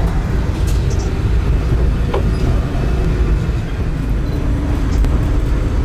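Metre-gauge electric train of the Centovalli Railway running along the track, heard from inside the carriage as a steady low rumble.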